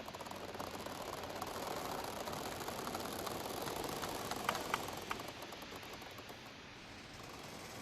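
Giant bamboo stems swaying in the wind, rubbing and creaking against each other over a steady rustle. The sound swells and then eases off, with a few short, sharp squeaks a little past the middle.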